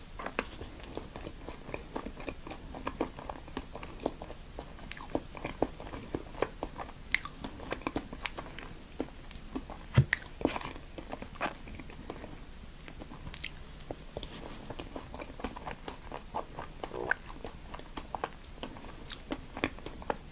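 Close-miked chewing and biting of crunchy food: a continuous run of small, irregular crisp crunches and mouth sounds, with one louder crunch about ten seconds in.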